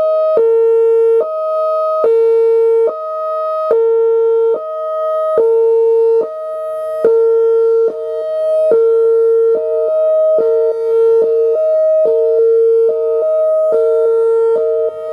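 Whelen Vortex R4 electronic outdoor warning siren sounding its Hi-Lo signal: two steady pitches alternate, each held just under a second, over and over.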